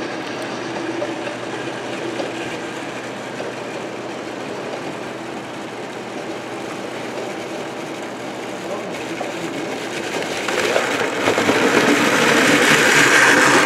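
Model train running along its track, its rumble and wheel clatter growing clearly louder from about ten seconds in as it comes close.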